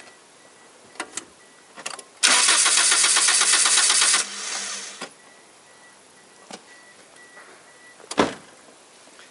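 Toyota Corolla VVT-i four-cylinder petrol engine turned over on the starter for about two seconds, with even pulses, while a compression gauge in cylinder two's spark-plug hole takes its reading. The cranking stops suddenly, and a sharp click follows near the end.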